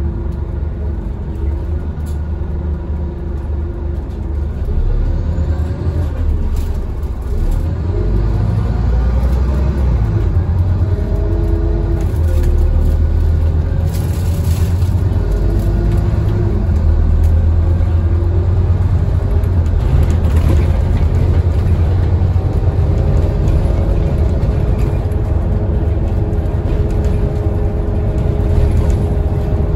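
Scania N230UD double-decker bus's five-cylinder diesel engine and ZF automatic gearbox, heard from inside the saloon while the bus is driven hard. It is a heavy low drone with a whine that rises and drops in pitch several times, getting louder about five seconds in and settling to a steadier tone in the last third.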